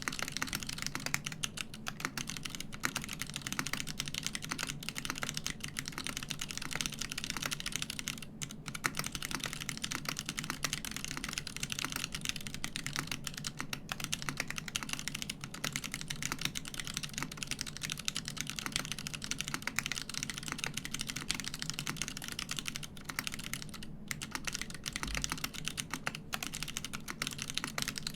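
Continuous fast typing on a custom mechanical keyboard with unlubricated Kailh Box Crystal switches on an aluminium plate in a polycarbonate case, under GMK keycaps: a dense, steady stream of keystroke clacks with a few brief pauses.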